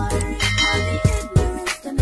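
Background music with a steady drum beat and heavy bass; the bass drops out briefly near the end.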